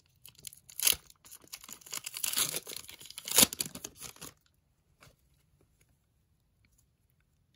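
A foil trading-card pack being torn open, its wrapper crinkling, with two louder tears. The crinkling stops a little past halfway, leaving only a faint tick.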